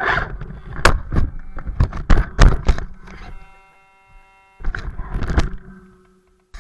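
BSD BT1001 radio-controlled crawler driving over rough backyard ground, its chassis and wheels knocking and scraping, with a steady whine in a brief pause midway. The sound fades out shortly before the end.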